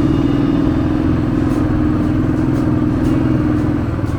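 Motorcycle engine running steadily under load, pulling up a steep hill climb. The engine note holds a steady pitch and eases a little near the end.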